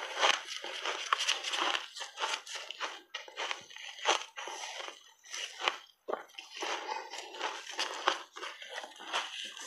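A person biting into and chewing a mouthful of crunchy shaved ice, close up: a fast, irregular run of crunches with a brief pause about six seconds in.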